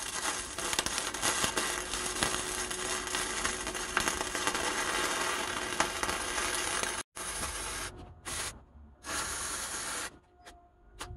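Stick (arc) welding: the arc crackles and hisses steadily for about seven seconds, then in a few shorter bursts, and stops about a second before the end.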